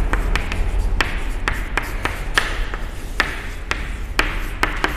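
Chalk writing on a blackboard: a run of irregular sharp taps and short scratches as each stroke of the letters is made.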